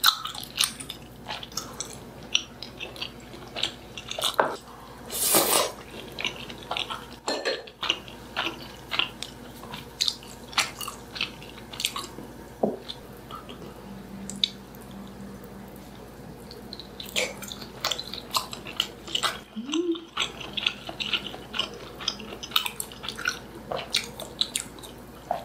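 Close-miked mukbang eating sounds: chewing, with many small clicks of utensils against dishes, and a longer, louder noise about five seconds in.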